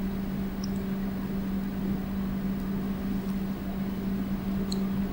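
Steady low hum with room noise, no speech, with a couple of faint ticks near the end.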